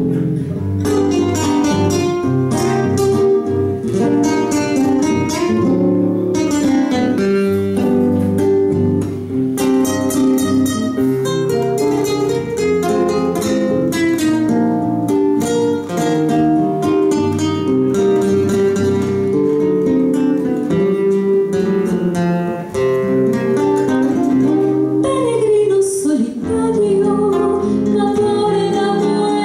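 Live nylon-string acoustic guitar, fingerpicked melody over bass notes, played through a PA. Near the end a woman's singing voice joins it.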